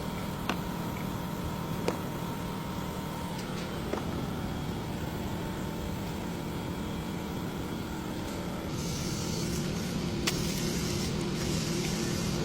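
Car running with a steady hum, broken by a few sharp knocks about half a second, two, four and ten seconds in, the kind of knock the video puts down to a faulty shock absorber mount. A hiss grows louder from about nine seconds in.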